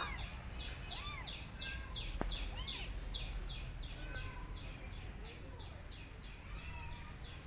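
A kitten mewing two or three times in the first three seconds, each a high call that rises and falls. Under it runs a steady series of short bird chirps, about three or four a second.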